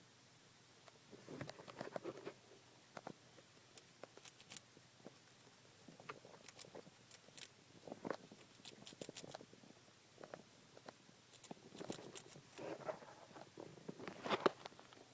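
A pet hamster making small noises: irregular faint clicks, scratches and rustles in bursts, the loudest cluster near the end.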